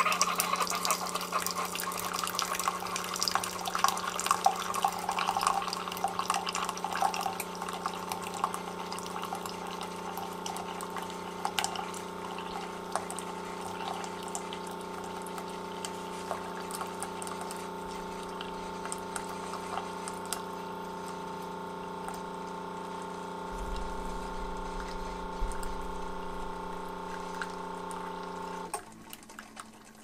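Keurig K-Elite single-serve coffee maker brewing a 10-ounce cup. Its pump hums steadily while coffee streams and splashes into the mug, and the splashing is louder in the first several seconds. The pump cuts off suddenly about a second before the end.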